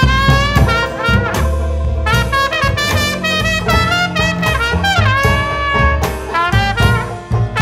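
Background music: an instrumental break in a jazzy blues song, with horns playing melody lines over a steady bass and beat.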